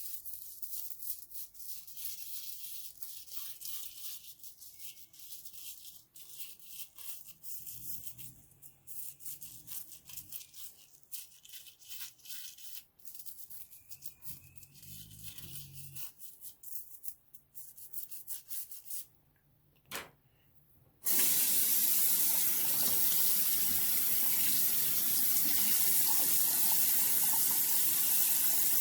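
An old toothbrush scrubbing a rubber remote-control keypad, a run of fast scratchy strokes. After a brief pause, a bathroom sink tap runs in a loud, steady stream.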